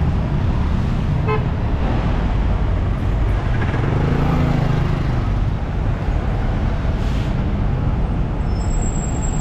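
City street traffic running steadily, with a short car horn toot about a second in.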